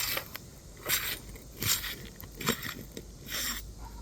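Asphalt roof shingles being pried and scraped with a metal tool: about five short, crunchy scraping strokes roughly a second apart.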